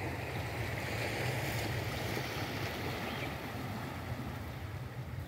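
Small sea waves washing over a rocky shore in a steady wash, with wind rumbling on the microphone.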